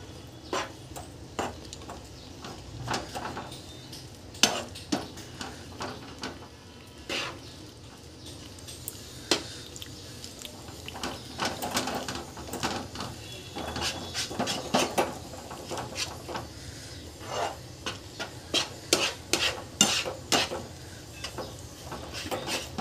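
A flat spatula scraping and knocking against a non-stick pan in quick, irregular clicks and scrapes. It is stirring a thick milk-powder, milk and ghee mixture for peda over the heat.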